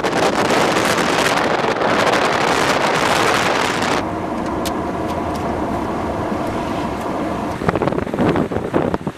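Strong tornado winds blasting the microphone with a heavy, rushing noise. About four seconds in it drops to a duller rush with a faint hum. Near the end it turns into uneven, gusty buffeting.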